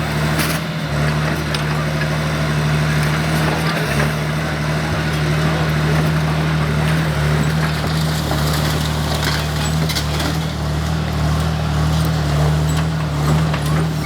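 O&K RH6 hydraulic excavator's diesel engine running steadily at a constant speed, with faint scattered clicks and cracks over it.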